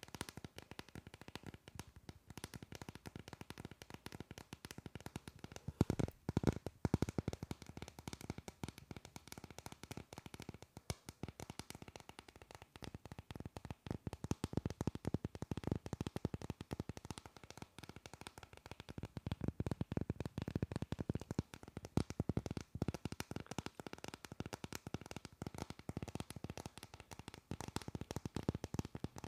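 Fingernails tapping and scratching rapidly on a hard panda-print case held close to the microphone, a dense patter of small clicks that turns busier and louder about six seconds in and again through the middle stretch.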